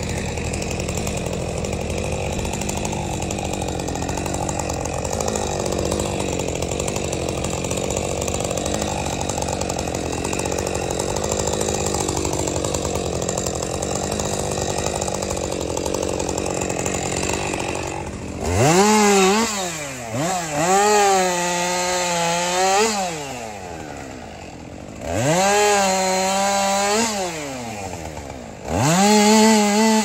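Gas chainsaw running at low speed, then throttled up hard three times from about eighteen seconds in, each burst sweeping up to a high steady whine and dropping back, as it cuts into a felled pine log.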